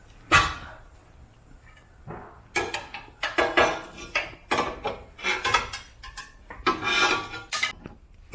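Metal hand tools clinking and clattering: one sharp knock near the start, then a quick irregular run of knocks and clinks with short ringing, like sockets and wrenches being handled and set down.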